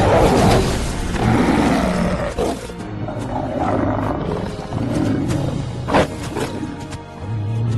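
Large wolves growling and snarling over film score music, with a sudden sharp loud sound about six seconds in.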